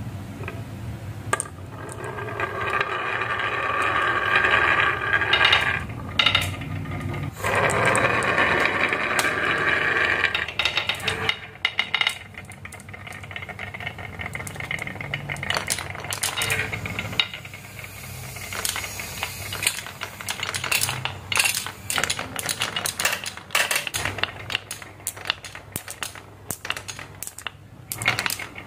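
Marbles and toy cars rolling down a wooden marble run. A steady rolling rumble builds for about ten seconds, with a short break partway, then gives way to a long run of quick, irregular clicks and clacks.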